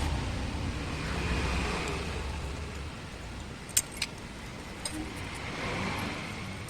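A steady low rumble of passing road traffic that eases after about three seconds, with two sharp metallic clinks of tools on engine parts about four seconds in and a lighter one a second later.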